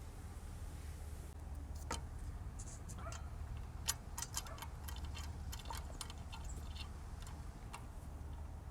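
Small metal parts being handled: a string of light, irregular clicks and clinks as a bolt, washer and lock nut are fitted by hand to mount a light bar, over a steady low hum.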